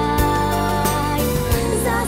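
Background music: a pop-style song with a steady beat and sustained instrumental tones.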